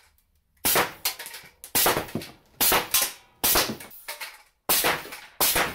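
Homemade pneumatic cannon, a nail gun with a PVC barrel, firing ball bearings: six sharp blasts a little under a second apart, each trailing off briefly.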